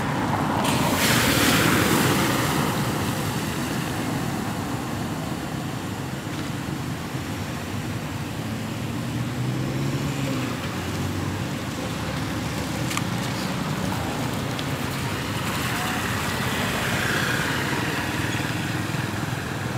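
Cars and motorbikes driving through a flooded street: a steady wash of tyres through standing water and passing engines. The loudest swish comes about one to two seconds in.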